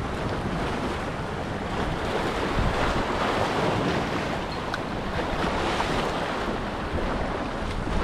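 Small waves washing and splashing against jetty rocks, with wind buffeting the microphone as a steady low rumble.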